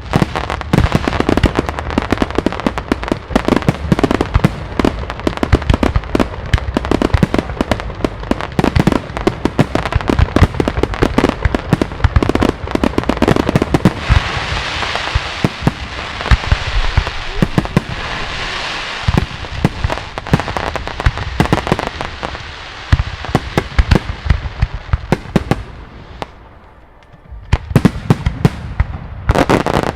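Aerial fireworks display: a rapid barrage of shell bursts and sharp reports, with a stretch of hissing crackle in the middle. The bangs thin out to a brief lull a few seconds before the end, then resume.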